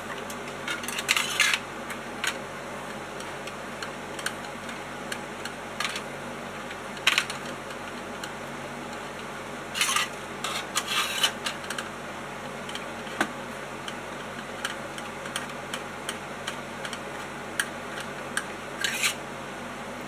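Scattered light clinks, taps and rustles of objects being handled on a workbench, in short clusters over a steady low hum.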